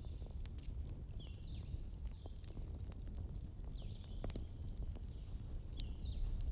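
Wood fire in a fireplace burning with a steady low rumble and scattered crackles and pops. Faint short, high, chirping whistles come and go over it.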